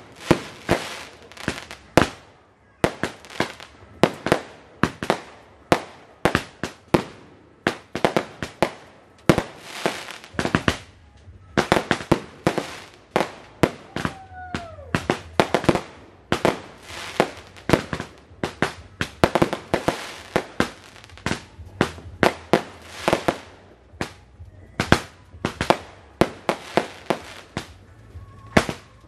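Roman candle fireworks going off in quick succession: a steady string of sharp bangs, about two or three a second, with a couple of short pauses. A brief falling whistle about fourteen seconds in.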